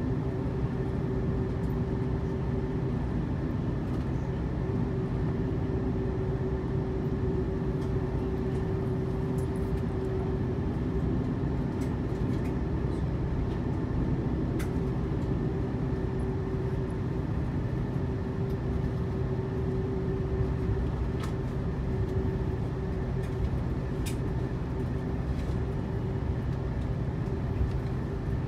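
Airbus A330-300's Rolls-Royce Trent 700 engines heard from inside the cabin: a steady drone with an even hum. A few faint clicks come through here and there.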